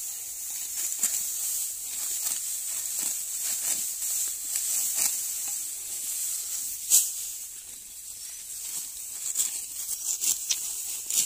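Hand sickles cutting through bunches of dry, ripe wheat stalks: a crisp rustling crunch with each stroke, coming irregularly about once a second, the sharpest about seven seconds in, over a steady high hiss.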